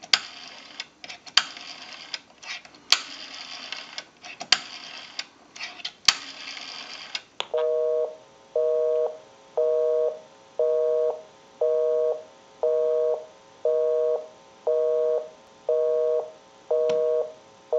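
Rotary dial of an Automatic Electric 3-slot payphone being wound and released for several digits, each return ticking off pulses with a sharp click. After about seven seconds the line gives a busy signal: a two-tone beep switching on and off about once a second, because the number dialed is already in use.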